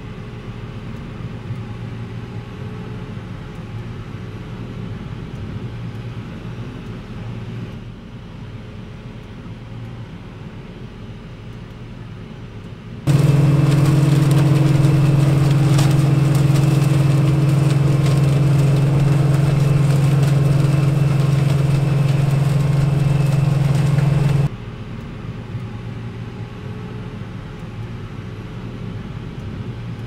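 OXBO 9630 self-propelled sweet corn harvester running, a steady engine and machinery drone. It jumps abruptly to a much louder, fuller drone with a strong low hum for about eleven seconds in the middle, then drops back just as suddenly.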